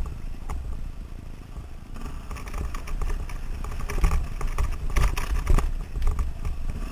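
KTM 530 single-cylinder four-stroke dirt bike running on a rough dirt track, with several clattering knocks as it goes over the bumps.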